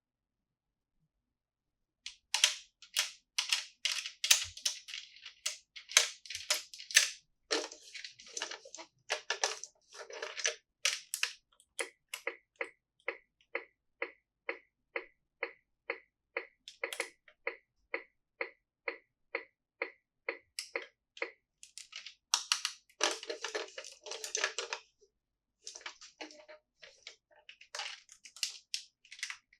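Crisp plastic crackling and clicking as toy pieces and their packaging are handled. It starts about two seconds in, settles into an even run of about two clicks a second in the middle, and turns into denser bursts of crackling near the end.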